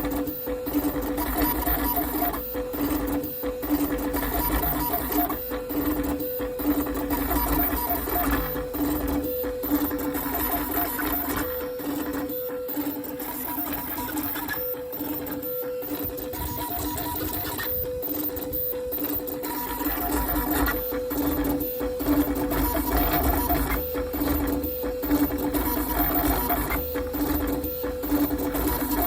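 Bed-slinger 3D printer printing at high speed and 20K acceleration: stepper motors whine in steady tones over a low rumble from the bed's rapid back-and-forth moves. The rumble eases for several seconds in the middle, then returns.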